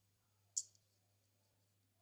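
A single short, crisp click from glossy slime being pressed and worked, about half a second in, over near silence with a faint steady low hum.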